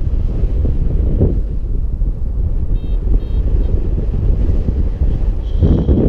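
Airflow buffeting the camera microphone during a paraglider flight, a steady gusty rush. A paragliding variometer beeps three short high beeps about three seconds in and sounds a brief steady high tone near the end, its climb signal for rising air.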